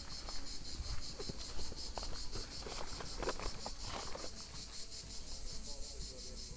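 A steady, high, fast-pulsing chirr of insects, with footsteps crunching on gravel during the first few seconds.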